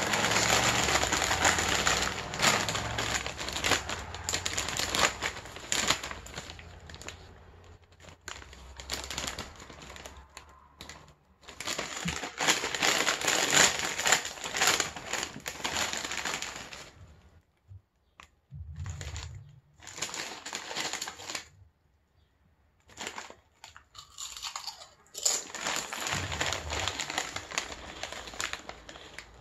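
A metallized plastic potato-chip bag crinkling and rustling as it is handled and pulled open, in several long bursts with short pauses between them.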